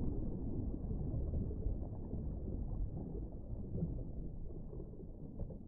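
Muffled, low underwater rumble and water noise, as picked up by a camera under water, fading out near the end.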